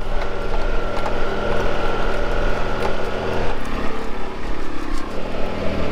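Engine of a side-by-side utility vehicle running as it is driven, a steady engine note that changes pitch about three and a half seconds in.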